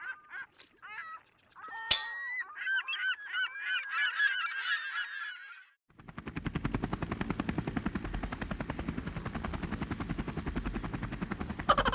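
Sound effects: a flock of birds calling in many overlapping cries, broken by a sharp crack about two seconds in. Then, from about halfway, the steady rapid chopping of a helicopter-type flying machine's rotor.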